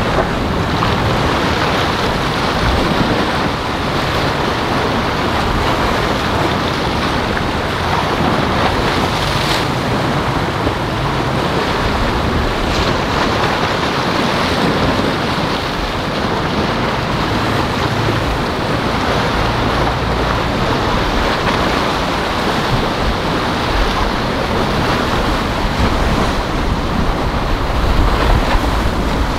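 Steady wash of sea and surf with wind buffeting the microphone.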